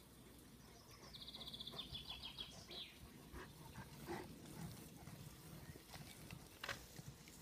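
German shepherd digging in soft earth with its head down in the hole: faint, irregular scraping and scratching of dirt, with a sharper scrape near the end.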